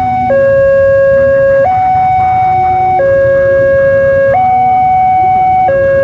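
Railway level crossing warning alarm sounding its electronic two-tone signal, alternating steadily between a lower and a higher note and holding each for just over a second. It means the crossing is closed for an approaching train.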